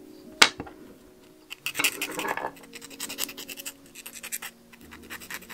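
Hand tool scraping a small craft piece in quick repeated strokes, with a sharp click about half a second in and a denser burst of scraping around two seconds in.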